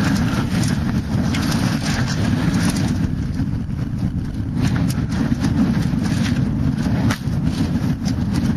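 Wind buffeting a helmet-mounted camera's microphone, a steady low rumble, while a mountain bike rattles down a rough dirt trail, with a few sharp knocks from the bike about five and seven seconds in.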